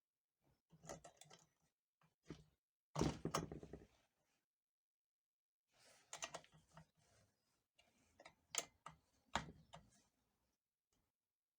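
A series of light clicks and knocks from small parts and tools being handled on a workbench, in irregular clusters, the loudest about three seconds in.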